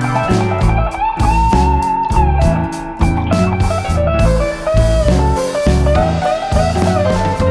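Background music led by an electric guitar, with a bass line and a steady beat.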